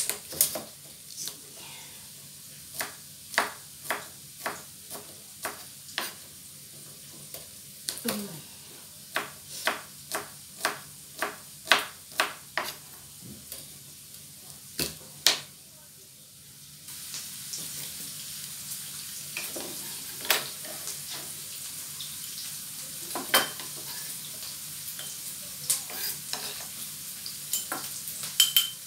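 Knife chopping garlic on a cutting board, a run of sharp knocks about two a second, over the sizzle of onions frying in oil in a pan. A little past halfway the chopping thins to scattered knocks and the sizzling gets louder.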